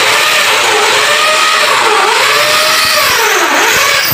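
Electric drill running continuously under load while drilling into the mounting for an aluminium hanging cabinet, its motor pitch sagging and picking up again twice.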